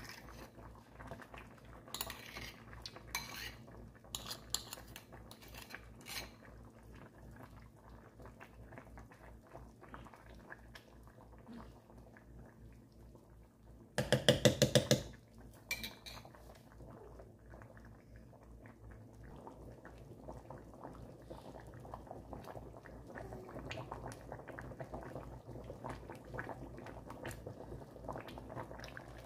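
A metal spoon scraping tomato paste out of a bowl and clinking in a pot of soup, with a quick run of loud taps on the pot about halfway through. Toward the end there is a soft bubbling of the soup simmering.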